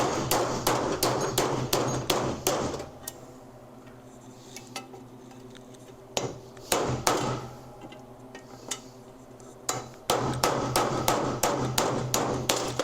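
Hammer blows on a socket, driving bearings out of a Harley-Davidson Ironhead Sportster crankcase: fast strikes about three a second, a pause with a few single blows in the middle, then another fast run from about ten seconds in.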